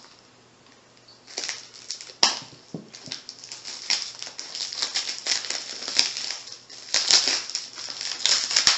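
Packing tape and plastic wrapping crinkling, crackling and tearing as a tightly taped parcel is cut open with a folding knife and peeled by hand. It starts about a second and a half in, with many sharp ticks through the rustle.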